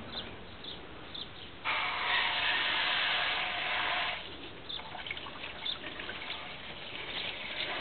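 Water running steadily for about two and a half seconds, starting nearly two seconds in. Before and after it, light irregular splashing and wet ticks of Kelpie puppies lapping water.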